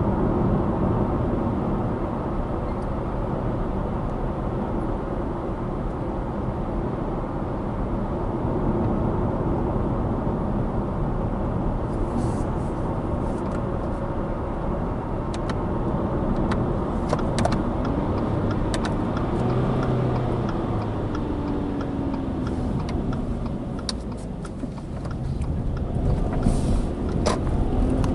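Subaru Impreza Sport with its 1.6 L FB16 flat-four engine driving downhill: steady engine and road rumble with a faint engine tone that slowly rises and falls. Scattered sharp ticks join in during the second half.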